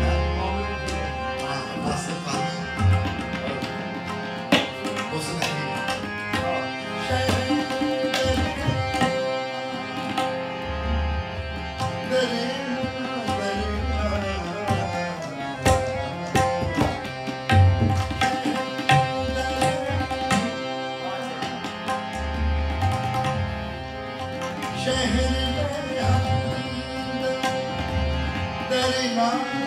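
Ghazal accompaniment: tabla playing a rhythm with deep bass strokes, over steady held notes from a melodic instrument.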